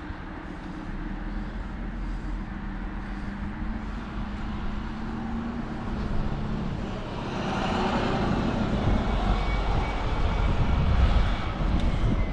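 Road traffic noise: a steady motor-vehicle hum and rumble, then a wider rushing noise that grows louder from about seven seconds in.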